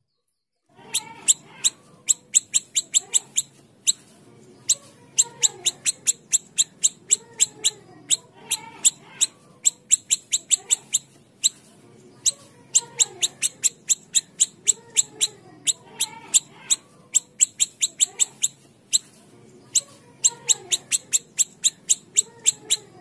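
Siri-siri kecil songbird singing: a fast string of sharp, high chipping notes in repeated bursts of several notes each, with softer, lower gliding notes in between.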